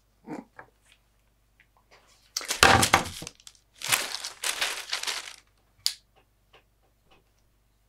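Clear plastic bag crinkling as it is handled, in two rustling bursts of about a second each, starting about two and a half and four seconds in. A few light knocks come before, and a sharp click near six seconds.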